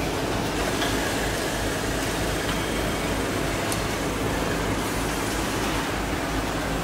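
Computer-controlled quilting machine running at speed: a steady mechanical hum under a constant hiss of machinery noise.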